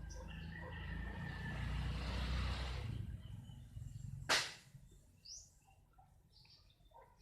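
A rushing outdoor noise, heaviest in the low end, swells over the first three seconds and fades. A single sharp knock or click about four seconds in is the loudest sound. Faint bird chirps follow.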